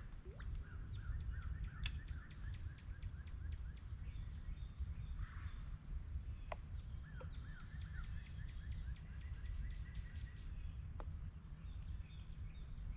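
A songbird singing a fast series of repeated chirps, about four a second, in two runs: one at the start lasting about four seconds and another about seven seconds in. A steady low rumble lies underneath throughout.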